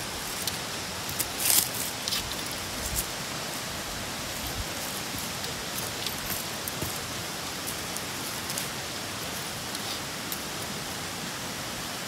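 Steady rushing of a mountain trout stream's flowing water, with a few light clicks in the first three seconds.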